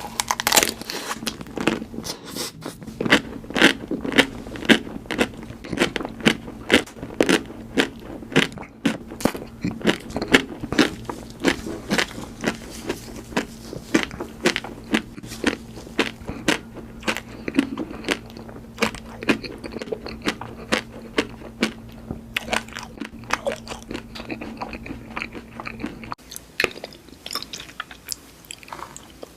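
Close-miked eating: someone chewing crunchy food, with crisp crunches coming roughly two or three times a second.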